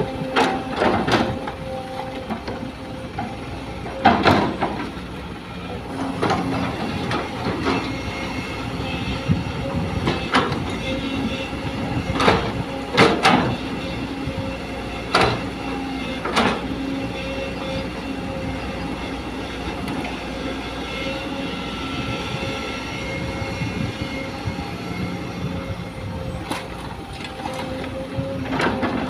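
Sumitomo hydraulic excavator working: its diesel engine and hydraulic system drone steadily under load, with about ten sharp metallic clanks and knocks, most in the first half, from the bucket and linkage and from soil and stones landing in the steel dump-truck body.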